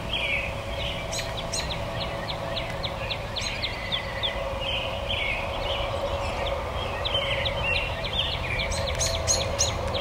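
Several songbirds singing and chirping at once in a sunrise chorus: quick runs of high notes sweeping downward, with the loudest notes near the end. A steady low hum and rumble lies underneath.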